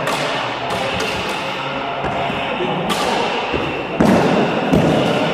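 Lightsaber-combat sabers' polycarbonate blades knocking together in sparring, several sharp clashes, the loudest about four seconds in, with thuds of footwork on the hall floor. The large hall makes each hit echo.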